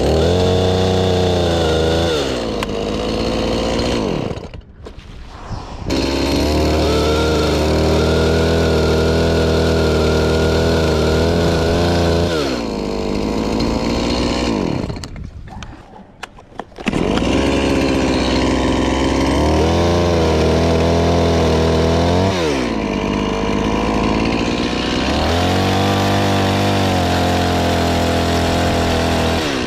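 Two-stroke chainsaw running at high revs cutting tree limbs, its pitch wavering. Twice it drops off to a much quieter idle, then revs back up.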